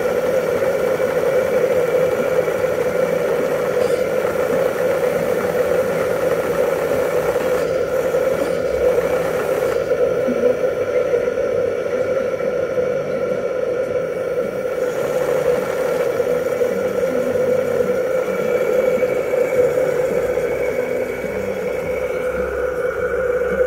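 Model steam launch's vertical twin-cylinder steam engine running steadily under steam during a test run.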